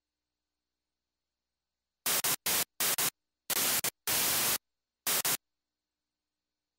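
Half a dozen short bursts of loud white-noise static, each switching on and off abruptly, starting about two seconds in after dead silence.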